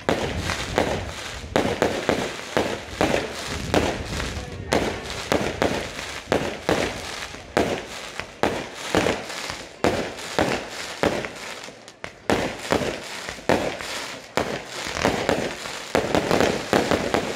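Daytime firecracker barrage: a rapid, unbroken string of bangs, several a second, with the smoke of the charges drifting off the hillside.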